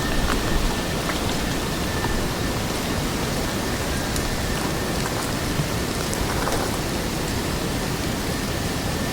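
Forest ambience: a steady, even rushing noise with scattered faint ticks and, in the first two seconds, a thin, faint high tone.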